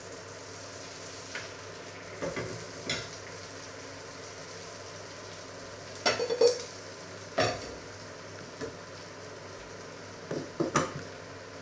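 Metal kitchenware clattering: a spoon, grill pan and pot lids being handled on a hob, in several short bursts with the loudest group about six seconds in and a glass pot lid clinking off a steel pot near the end. A steady low hiss runs underneath.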